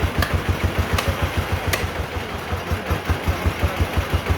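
An engine idling with an even low thump about five times a second, with three sharp knocks about a second apart in the first two seconds.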